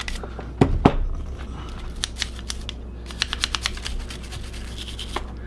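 Nylon brush scrubbing solvent and carbon from a single-action revolver's frame around the firing pin, in quick, scratchy, clicking strokes that come fastest around the middle. Two sharp knocks sound a little under a second in.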